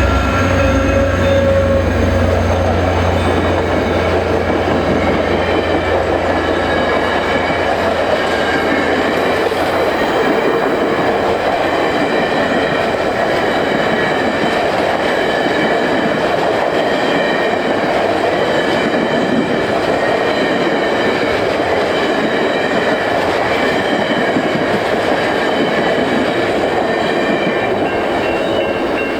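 VIA Rail passenger train passing at track side. The locomotive's engine hum fades over the first few seconds, then the passenger cars roll by in a steady rumble of wheels on rail.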